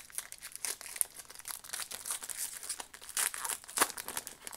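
Foil wrapper of a Pokémon card booster pack crinkling and tearing as it is ripped open by hand, a dense run of sharp crackles.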